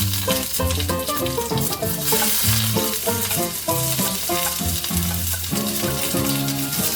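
Food sizzling as it fries in a pan, a steady hiss. Background music with a melody and bass line plays over it.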